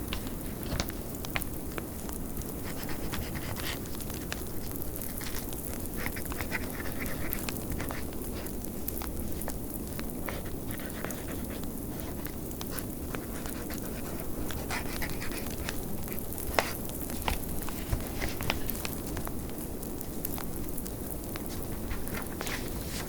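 Log fire crackling with scattered sharp pops, a few louder than the rest, over the steady low rush of blizzard wind.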